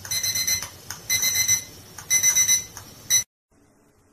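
Digital alarm clock beeping: rapid high-pitched beeps in short groups about once a second, cutting off suddenly about three seconds in.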